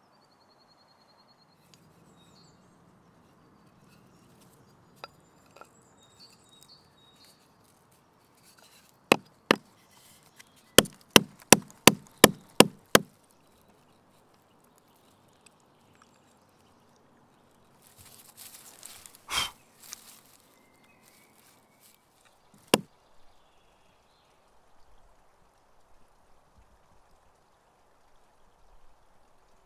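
Sharp wooden knocks as a new stone axe head is tapped down into the slot of its cord-lashed wooden handle: two knocks, then a quick run of seven at about three a second. Later comes a brief rustling scrape with one loud knock, then a last single knock.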